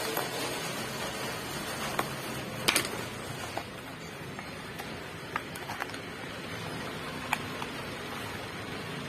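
A parcel being opened by hand: scattered crinkles and clicks of the packaging, the loudest a short cluster nearly three seconds in, over a steady background hiss.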